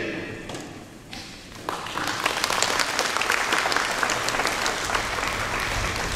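Audience applauding in a large hall, starting about two seconds in and then holding steady.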